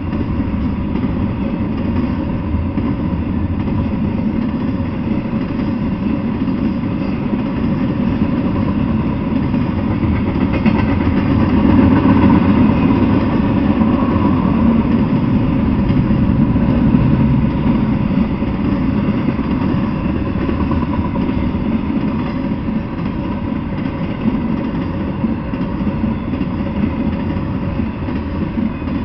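Double-stack intermodal freight train's well cars rolling past on the rails: a steady, loud rumble of wheels on track, loudest about halfway through and easing off near the end as the last cars go by.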